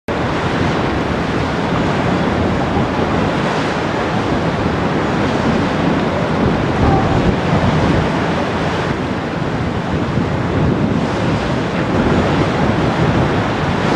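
Steady rush of wind on the microphone and water from a passing inland cargo ship's bow wave, with the ship's diesel engine running underneath.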